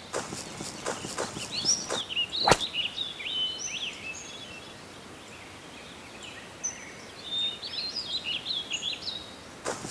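Small birds chirping and twittering in two spells, over a light outdoor hiss. A run of short knocks fills the first two seconds, and one sharp click about two and a half seconds in is the loudest sound.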